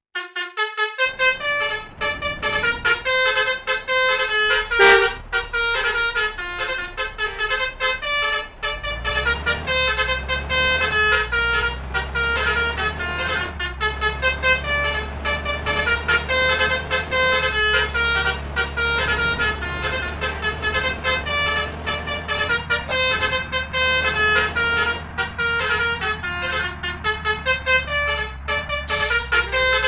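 Basuri "telolet" bus horns, multi-trumpet musical horns, playing quick overlapping tunes of short notes. A steady low rumble joins about nine seconds in.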